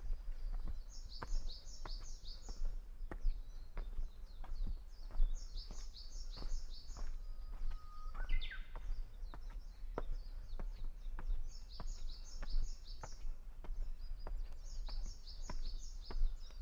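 A Japanese bush warbler sings once, about halfway through: a held whistle that sweeps steeply upward into a quick flourish, the classic 'hoo-hokekyo' song. Around it, another small bird repeats a high twittering phrase four times, over a low rumble and frequent sharp ticks.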